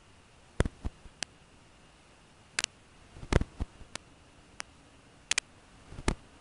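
Scattered sharp clicks and crackles, about a dozen at uneven intervals, over a faint steady hiss; the loudest cluster comes about three seconds in.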